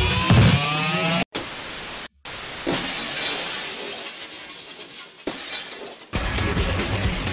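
Intro music cuts out about a second in and gives way to a glass-shattering crash effect, whose falling-debris noise fades away over several seconds with a couple of smaller hits. Music with a steady beat comes back in near the end.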